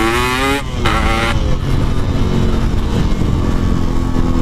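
Yamaha RX-King 135 cc single-cylinder two-stroke engine, fitted with a Packing Power exhaust, accelerating under riding load. Its pitch climbs, breaks off briefly just under a second in as in a gear change, climbs again, then holds steadier.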